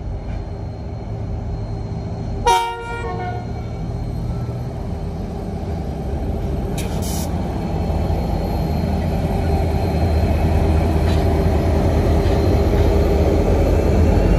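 Diesel-electric locomotives hauling a loaded coal train give one short horn toot about two and a half seconds in. Their engines run with a rumble that grows steadily louder as the train approaches and passes close by.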